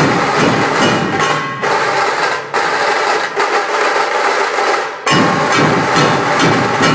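Dhol-tasha ensemble drumming: large barrel dhol drums and sharp tasha drums beating a fast, loud rhythm. About a second and a half in, the deep beats fall away, leaving the lighter drumming, and the full ensemble comes back in suddenly about five seconds in.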